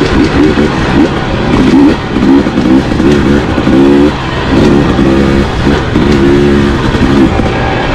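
Dirt bike engine revving up and dropping back over and over, its pitch climbing and falling about once a second as the throttle is opened and closed while riding a single-track trail.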